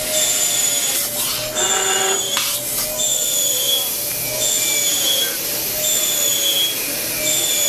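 High-speed milling spindle running with a steady air hiss and a high-pitched whine that recurs in roughly one-second stretches, each sagging slightly in pitch. A few sharp clicks come between about one and two and a half seconds in.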